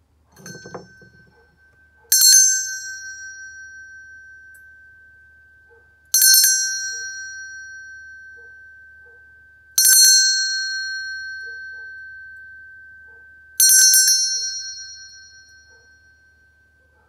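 Brass hand bell struck four times, about four seconds apart. Each stroke is left to ring out in a long, slowly fading tone. A soft knock from handling the bell comes about half a second in, before the first stroke.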